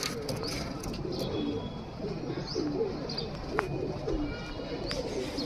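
Domestic pigeons cooing, many low wavering coos overlapping, with a few sharp clicks and some higher chirps among them.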